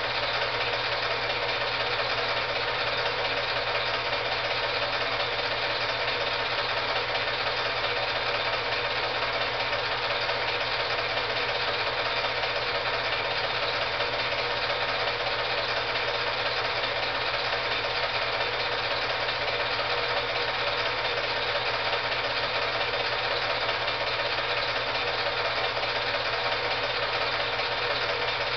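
Film projector running: a steady mechanical whir with a fast, even clatter that does not change.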